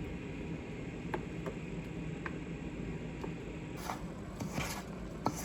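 A spoon stirring and scraping a thick batter of crushed cattle feed cubes and blended banana and sweet potato in a bowl: a few light taps, then scraping strokes from about four seconds in, over a low steady hum.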